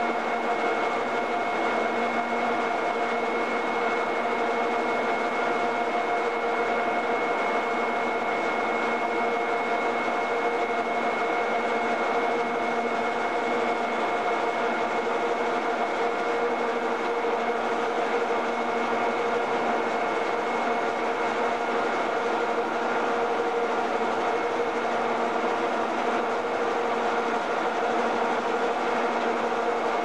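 Steady machine hum with a constant high whine from the equipment of a railway bogie-exchange shed, unchanging in pitch and level.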